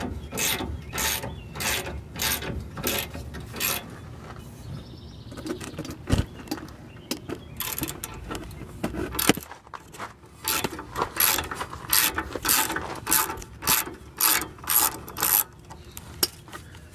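Hand ratchet with an 18 mm socket clicking in quick regular strokes, about two a second, as it spins out the freed-up bolts of a rear disc-brake caliper. The clicking breaks off for a couple of seconds about four seconds in, then resumes.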